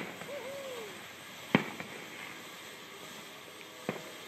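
Fat Cat ground fountain firework spraying sparks with a low hiss, broken by three sharp cracks about a second and a half to two seconds apart. A faint, short whistle rises and falls just after the first crack.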